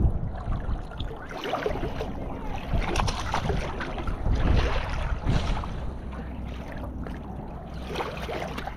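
Wind buffeting the microphone over shallow water, a low steady rumble, with scattered knocks and rustles of handling, busiest in the first half.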